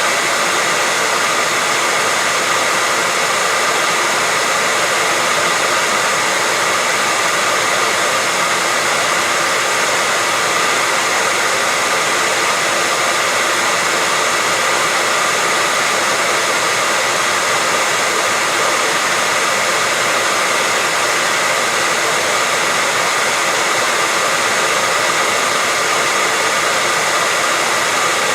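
Hair dryer running steadily: an even, unbroken rushing hiss with a faint steady whine, used as white noise for lulling babies to sleep.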